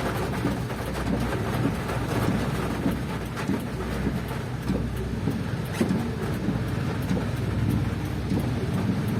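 Steady rush of heavy rain and wind with the road noise of a vehicle travelling through the downpour, a low rumble under a hiss, with scattered faint ticks.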